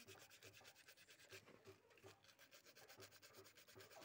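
Faint, repeated rubbing strokes of a hand scrubbing inside the metal field-coil housing of a stripped-down starter motor during cleaning.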